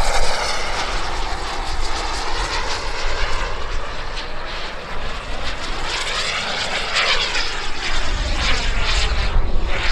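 Turbine engine of a radio-controlled model jet flying past overhead: a steady rush with a whine that sweeps in pitch as it passes, about six to seven seconds in.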